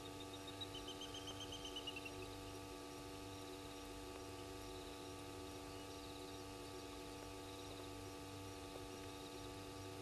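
Quiet night ambience: a steady hum with faint insects chirping. About half a second in comes a rapid trilled call lasting about a second and a half, dropping in pitch at the end.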